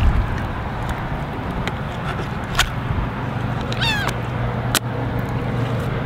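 A gull calling with a quick series of mewing, downward-sliding notes about four seconds in, over a steady low rumble and a few sharp clicks.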